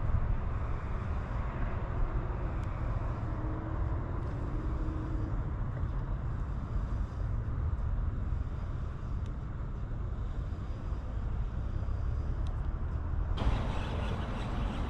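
Steady low rumble with an even hiss of outdoor background noise, with no distinct event; about 13 seconds in it turns suddenly brighter and hissier.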